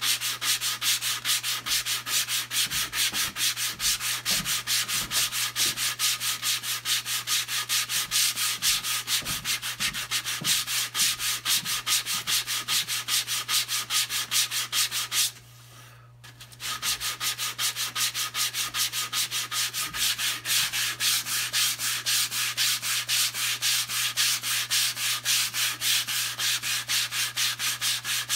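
Sandpaper on a hand sanding block rubbed back and forth over the basswood of a half-hull boat model, in even strokes about three a second, with a pause of about a second midway.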